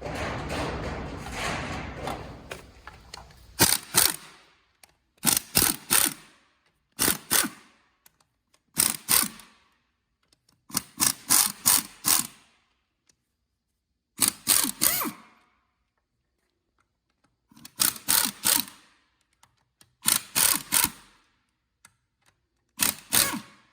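Parts of a five-speed automatic transmission being handled during teardown. It starts with about three seconds of rustling and scraping, then about nine short clusters of sharp clinks, two to four at a time, every second and a half to two seconds, with silence between.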